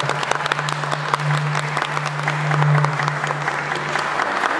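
Audience applauding, many hands clapping at once. A low steady hum sits underneath and stops near the end.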